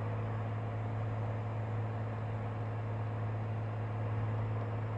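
Cirrus SR22's six-cylinder piston engine and propeller droning steadily, heard inside the cabin in flight. No distinct knocks stand out.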